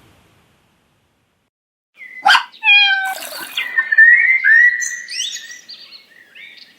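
Cat meowing: after a silent start, a quick run of short meows, then longer drawn-out meows.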